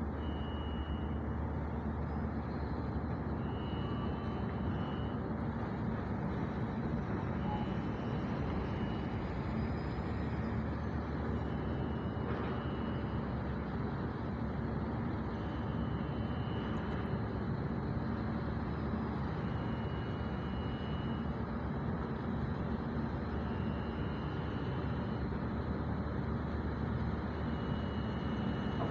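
Low, steady rumble of the ro-ro ferry Botnia Seaways' engines as it turns in the harbour. A short high beep sounds about every four seconds throughout.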